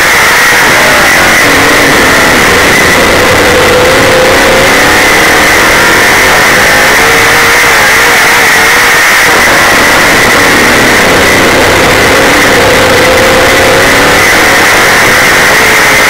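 Super late model dirt racing car's V8 engine at racing speed, heard on board and very loud. The pitch climbs and falls several times as the car accelerates and lifts through the laps.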